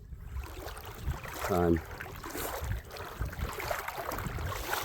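Water splashing and sloshing in an uneven rhythm, as from wading steps through a shallow creek.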